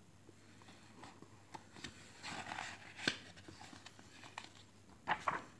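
A picture book's paper page being turned: a soft rustle followed by a light click as the page settles, amid faint handling noises.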